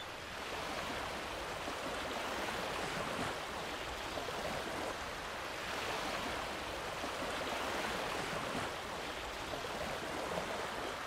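Small waves lapping and washing steadily onto a gravel lakeshore.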